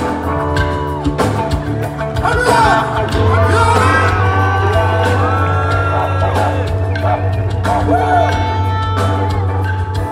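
Live band music with drums, bass and electric guitar, a singer's voice gliding over a steady bass line, and whoops and shouts.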